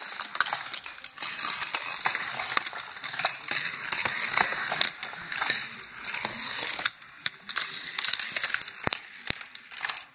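Scratchy, crackling handling noise from a hand rubbing against the recording device while playing with a plastic toy track, full of small clicks. It drops away about seven seconds in, leaving a few separate sharp clicks near the end as toy cars are moved about.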